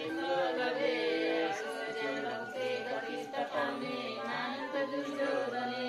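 Music with several singing voices holding long, drawn-out notes.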